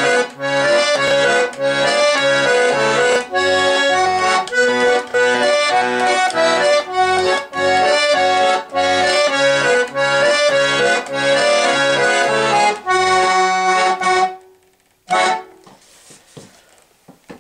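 Russian garmon (button accordion) playing a lively tune, the melody running over a regular bass-and-chord accompaniment. It ends on a held chord about fourteen seconds in, followed by one short burst of sound about a second later.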